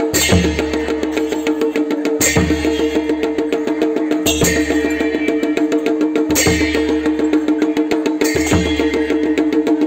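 Kumaoni folk drumming on dhol and damau, beaten in a fast, dense rhythm. Large brass hand cymbals clash together with a deep drum stroke about every two seconds. A steady drone is held underneath throughout.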